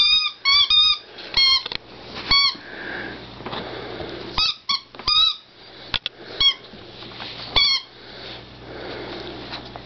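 Squeaky plush toy pig being chewed by a puppy: about ten short squeaks at irregular intervals, with quieter mouthing and chewing between them.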